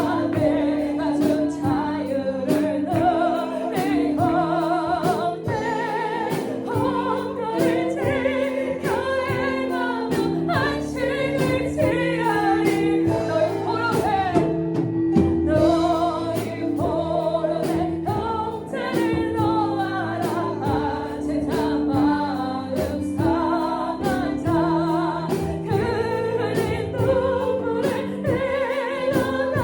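Christian worship song: voices singing with vibrato over a band's held chords and a steady beat.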